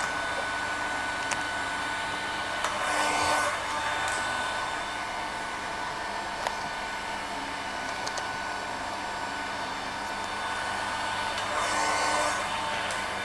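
Heat gun blowing steadily as it warms vinyl wrap film on a car panel to soften it for stretching, getting louder briefly twice.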